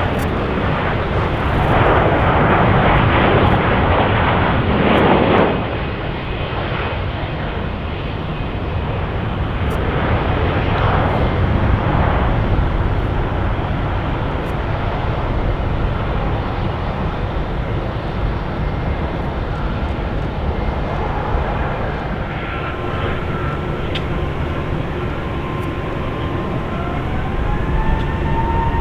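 Jet airliner engine noise: a steady rumble, louder for the first five or so seconds, with a rising whine near the end.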